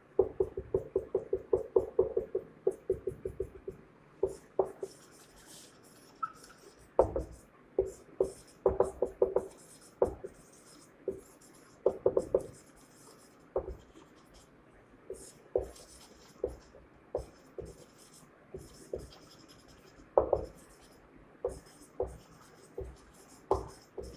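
Marker pen squeaking on a whiteboard in short strokes. A quick run of strokes comes first, then scattered strokes with pauses between them as words are written.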